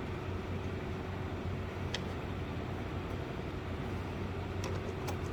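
Steady low background hum, with a few faint light clicks of small screws and nuts being handled and threaded on by hand.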